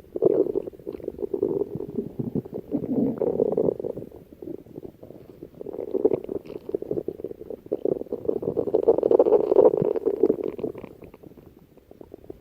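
Stomach growling: long, irregular rumbles that swell and fade in several waves, loudest a little past two-thirds through and dying away near the end.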